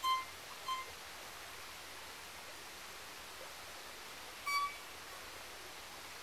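Violin playing short, high bowed notes that imitate a pygmy wren-babbler's call: two notes close together at the start and one more about four and a half seconds in, over a steady faint hiss.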